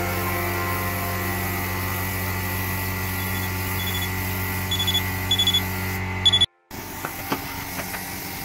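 Short, high-pitched electronic beeps, about five of them spread over three seconds, over a steady hum. The sound then drops out abruptly and gives way to a quieter background with a few light clicks.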